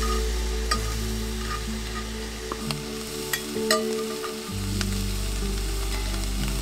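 Food frying in hot oil in a cast iron skillet: a steady sizzle with sharp pops now and then. Background music with sustained low notes plays underneath.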